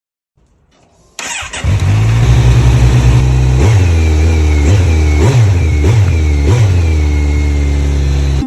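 An engine starts about a second in, then runs steadily, with five short revs in the middle.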